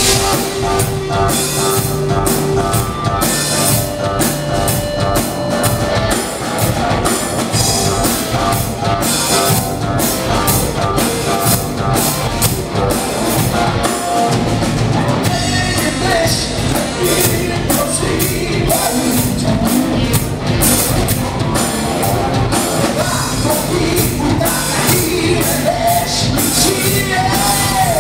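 Live rock band playing loudly and without a break: electric guitars over a drum kit.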